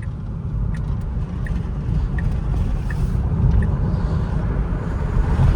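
Road and wind noise inside a moving 2024 Tesla Model 3 Long Range with the windows down: a steady low rumble that gets gradually louder, with faint regular ticks about every 0.7 seconds.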